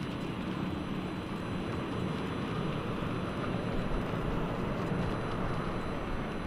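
Embraer E190 jet airliner's twin turbofan engines running, a steady rumble that swells slightly about four seconds in.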